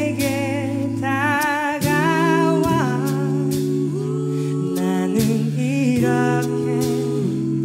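Background music: a song with a singing voice holding notes with vibrato over sustained chords.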